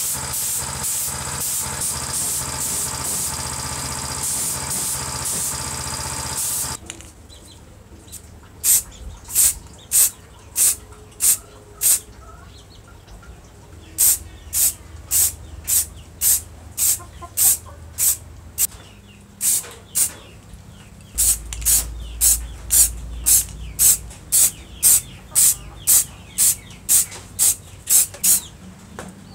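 Aerosol spray paint can hissing in short, quick bursts, about two a second in runs with pauses, as metal saw parts are sprayed in light passes. Before that, a steady mechanical hum cuts off about seven seconds in.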